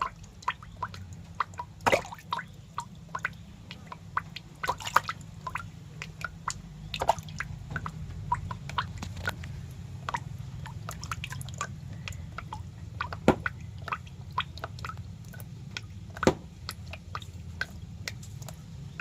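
Irregular wet clicks and drip-like ticks, a few a second, some sharper and louder than the rest, over a steady low hum.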